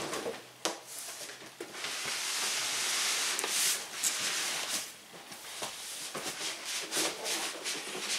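Corrugated cardboard box rubbing and scraping as it is tilted and handled, with a thump at the very start and scattered light knocks; the rubbing is loudest in the middle.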